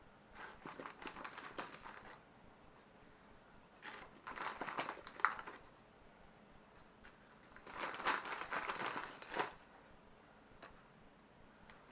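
Crinkling, crackling plastic packaging, handled while Quorn fillets are taken out and added to a slow cooker. It comes in three bursts of a second or two each, with quiet gaps between.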